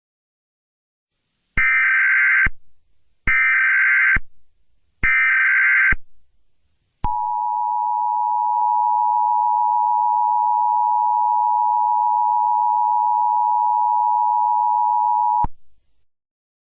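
Emergency Alert System signal: three short bursts of SAME header data, each about a second long with a second's gap between. After them comes the EAS attention signal, the steady two-tone 853/960 Hz alarm, held for about eight and a half seconds before it cuts off sharply. Together they open an Emergency Action Termination alert.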